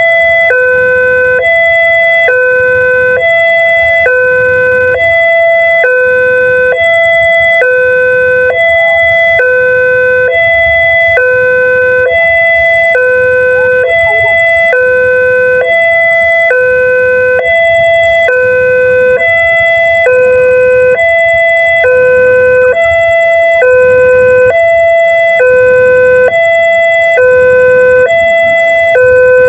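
Railway level-crossing electronic warning siren sounding a loud, continuous two-tone alarm, switching back and forth between a lower and a higher pitch about every half second.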